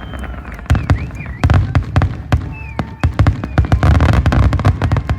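Aerial fireworks bursting in a rapid barrage, several sharp bangs a second, with heavier booms about a third of the way in and again near the end.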